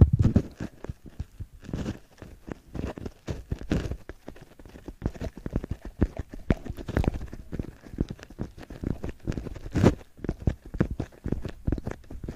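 Fingers tapping and scratching on a white cloud-shaped prop held right at a microphone: a rapid, irregular stream of close-up taps and scrapes, with a sharper tap about ten seconds in.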